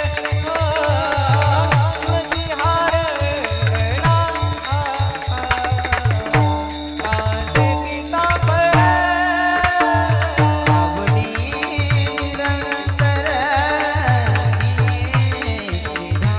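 Marathi kirtan music: a voice sings a devotional panchpadi melody over held steady notes and a drum's repeated low strokes that slide down in pitch, with small cymbals ticking along. The singing breaks off for a moment about six to eight seconds in while the drum keeps going.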